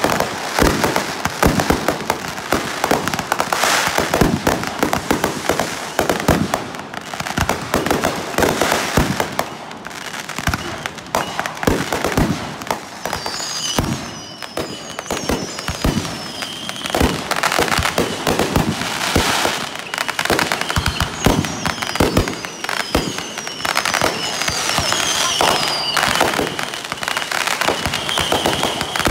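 Consumer fireworks going off in quick succession: a dense run of bangs and crackling from aerial bursts and ground-launched cakes, with high falling whistles in the second half.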